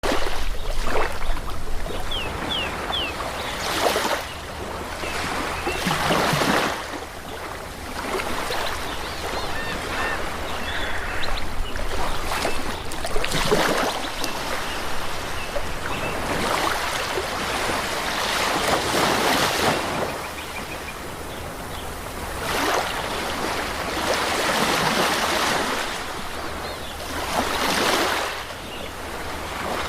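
Sea waves breaking and washing on the shore, swelling and ebbing every few seconds.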